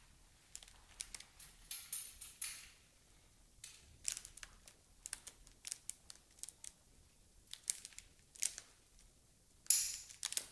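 Irregular light clicks and short crinkling rustles, about a dozen scattered through, the loudest near the end.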